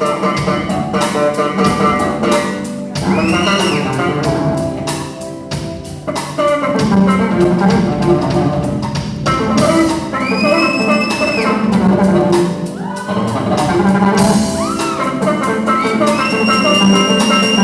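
Music with a drum beat and pitched instruments playing together; a few high sliding tones rise and hold, around the middle and again near the end.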